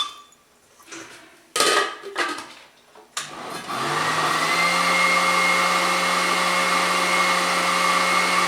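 A few knocks and clatter, then about three seconds in a countertop blender motor starts, winding up to a steady whir as it purees a thick duck liver mixture.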